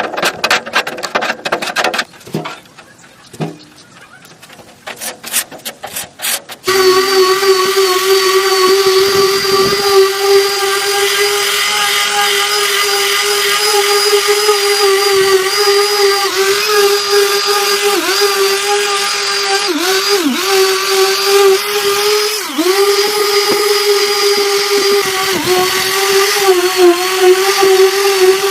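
Handheld electric power tool running at a steady high speed, its pitch dipping briefly several times as it is pressed into the work. Before it starts, about the first seven seconds hold scattered clicks and knocks.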